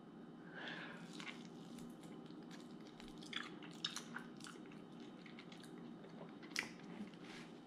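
Faint chewing with a few small, scattered mouth clicks.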